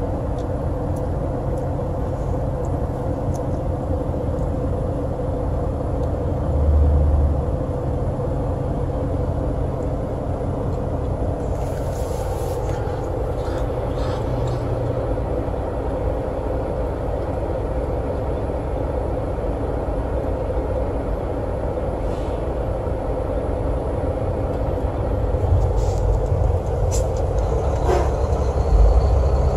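Steady drone of a truck's engine and road noise heard from inside the cab while driving, with brief low thumps about seven seconds in and near the end.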